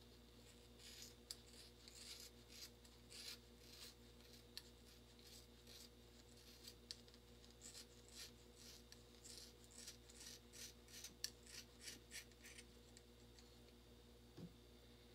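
Scissors snipping through dreadlocks: a faint, irregular run of quick cuts, two or three a second, that stops a few seconds before the end.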